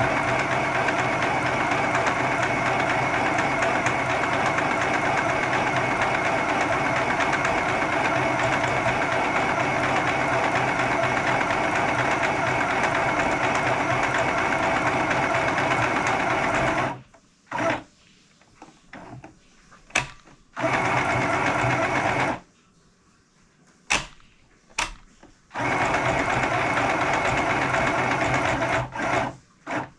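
Compact electric sewing machine stitching fabric: the motor and needle run steadily for about seventeen seconds, stop, give several short bursts, then run steadily again for a few seconds near the end.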